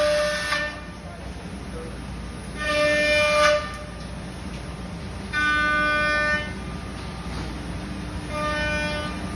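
CNC router cutting a wooden longboard blank: under a steady running noise, a loud whine at one steady pitch rises for about a second each time the bit cuts through the wood, and comes back about every three seconds, four times in all.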